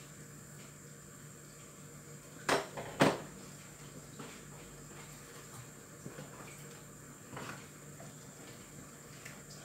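Two sharp clanks about half a second apart, then a fainter knock later, as an aluminium cooking pot and its lid are handled on a gas stove.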